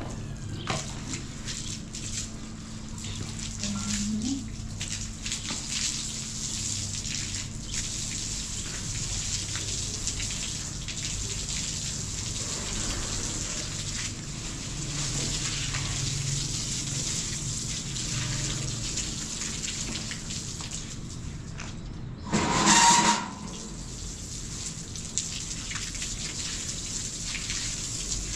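Water spraying from a garden hose onto a tiled floor and wall, a steady hiss and splatter. About 22 seconds in, a louder rush lasts under a second.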